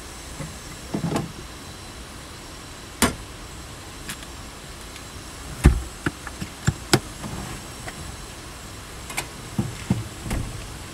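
Irregular knocks and clatters from handling camp-kitchen gear: a plastic cooler-box lid and items set on a metal camp table. The loudest knock comes about halfway through, and a quick run of clicks follows it. A steady hiss lies underneath throughout.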